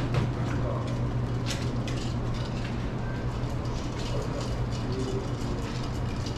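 Café room tone: a steady low hum with a few faint clinks and clatter.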